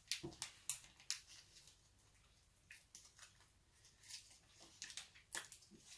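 Faint crinkling and crackling of a plastic sweet packet being handled, in short scattered clusters of small clicks.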